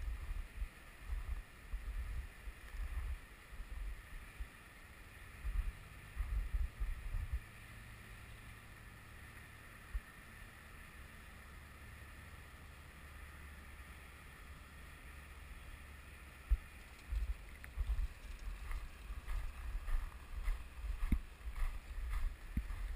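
Wind gusting on the microphone, with a faint, steady high whine from the electric motor of a FunJet RC model jet flying some way off. Near the end, a run of small ticks and knocks comes in.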